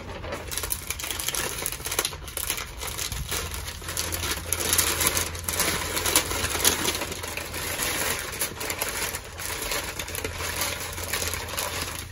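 Packing paper crinkling and rustling continuously as it is unfolded by hand to unwrap a porcelain teacup.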